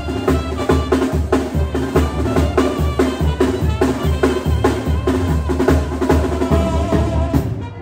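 Live Mexican banda music: a steady, driving bass-drum beat a little over two beats a second under brass, with snare hits. The music breaks off abruptly just before the end.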